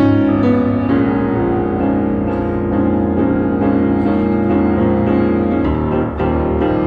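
Solo piano improvising in a jazz vein: held chords with notes moving over them, and the bass shifting to a new chord about two-thirds of the way through.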